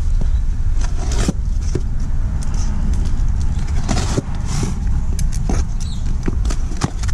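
A pocket knife slitting the packing tape on a small cardboard box and the flaps being worked open: scattered scrapes and clicks with a few short tearing sounds, over a steady low rumble.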